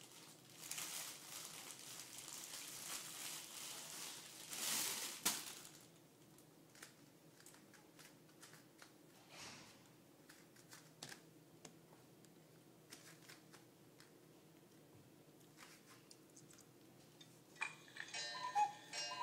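Soft rustling, like crinkling or handling noise, for the first five seconds or so, then faint scattered clicks and taps. A child's voice begins near the end.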